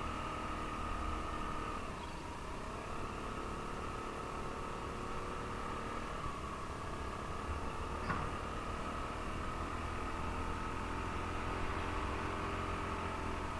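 A 125 cc scooter's engine running as it rides along, heard from the rider's helmet with a low wind rumble underneath. The engine note sags about two seconds in and climbs again later on. There is a brief click about eight seconds in.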